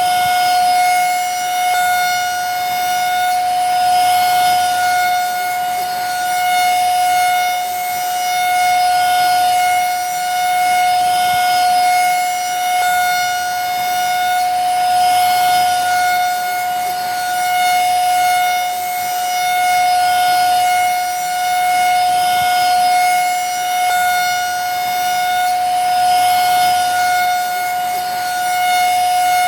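Vacuum cleaner running steadily: a constant high motor whine over a rushing hiss, swelling and easing slightly about every two seconds.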